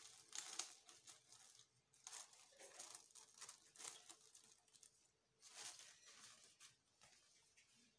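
Faint rustling and crinkling of paper-thin warqa pastry sheets as they are peeled apart and laid over a plate, in several short bouts.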